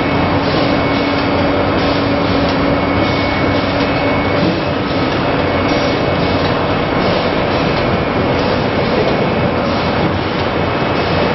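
Hard candy production line machinery running with a loud, steady mechanical din and a few steady hums underneath.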